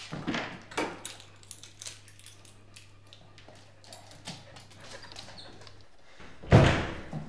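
A door opening and a man and a dog walking in on a hard floor, with scattered light clicks and knocks, then one loud thump near the end.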